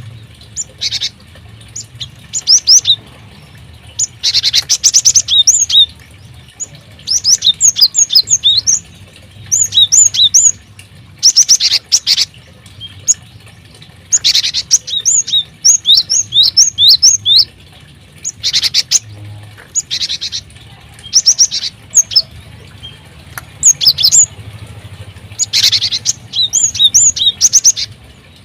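Small aviary birds chirping: repeated bursts of quick, high chirps and trills every second or two, with several birds calling over one another.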